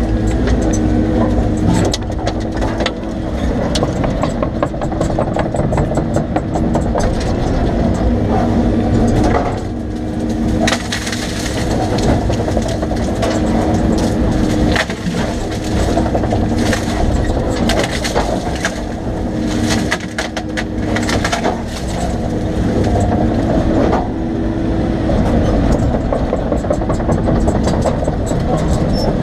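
Excavator's diesel engine running steadily under load, with repeated sharp cracking and splintering of wood as trees are pushed over and break.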